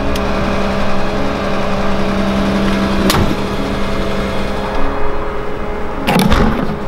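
Motor vehicle engine and road noise running steadily, with two brief whooshes of vehicles passing, about three seconds in and near the end.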